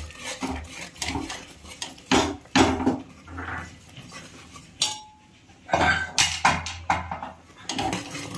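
Steel ladle scraping and clinking against the sides of a pressure cooker pot while stirring cooked urad dal and palm jaggery, with a short pause about five seconds in.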